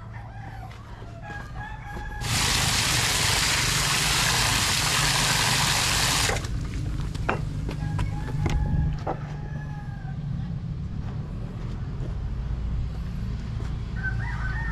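A rooster crowing a few times, short pitched calls early on, about eight seconds in and again near the end. A loud, even hiss starts about two seconds in and cuts off after about four seconds, over a steady low hum.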